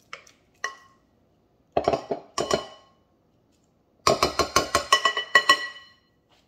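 Utensil clinking against a ceramic bowl of mashed bananas: a few single clinks, then about four seconds in a quick run of about ten ringing taps.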